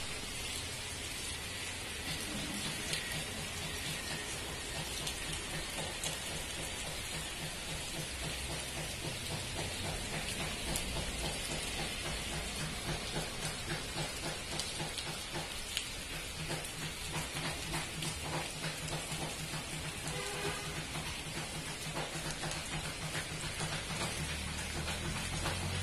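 Heavy rain falling steadily: an even hiss with the close patter of drops.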